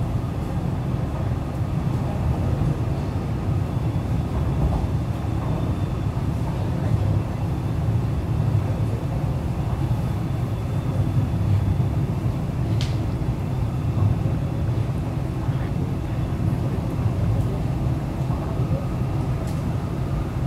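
Cabin noise inside an MTR East Rail Line R-Train, a Hyundai Rotem electric multiple unit, running at speed: a steady low rumble from the wheels and running gear on the track. There is one brief sharp click a little past halfway.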